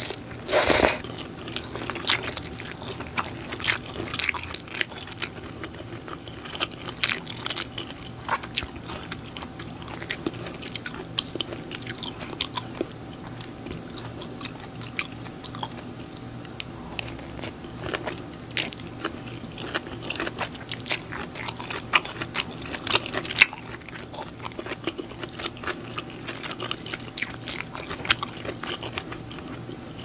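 Close-miked eating sounds: wet chewing and lip-smacking of stir-fried glass noodles (japchae), with many sharp, crunchy clicks and a loud noisy burst just under a second in.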